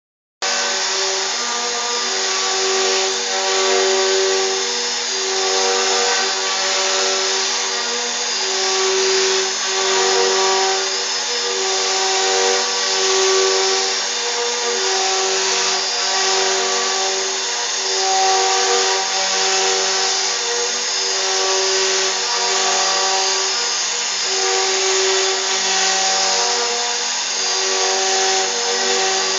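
CNC router carving in 3D: the spindle runs steadily while the stepper motors whine, their tones changing pitch and switching on and off with each move of the cutting head.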